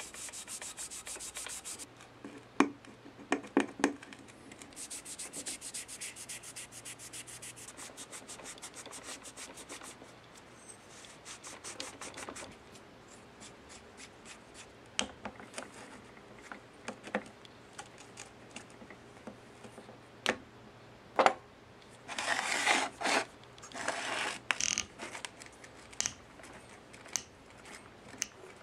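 Cotton work glove rubbing a polisher's metal gear housing in quick back-and-forth wiping strokes, with a few sharp knocks a few seconds in. Later come scattered metal clicks and a short stretch of scraping as a bearing puller clamped on the motor armature is handled.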